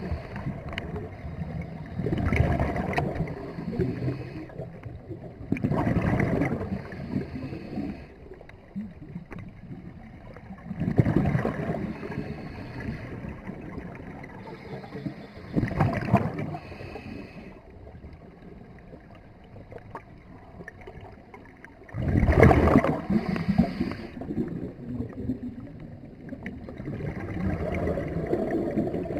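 Scuba diver breathing through a regulator underwater: six bubbly exhalation bursts a few seconds apart, with a faint thin hiss between them.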